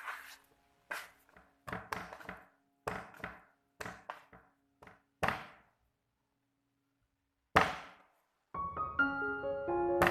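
Soft milk-bread dough slapped down on a work surface during hand kneading: a run of dull thuds, about one a second, then a pause and one louder thud. Background piano music comes in near the end.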